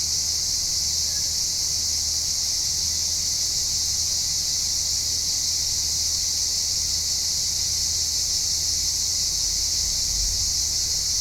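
Steady, high-pitched chorus of insects chirring without a break, over a low steady hum.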